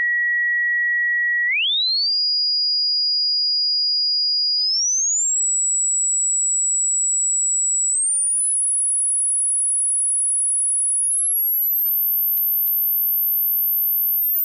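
Hearing-test sine tone: a single pure whistle that holds each pitch for a few seconds, then glides up to the next, climbing in steps from a high whistle to a thin, very high pitch near the top of human hearing. Two faint clicks sound near the end.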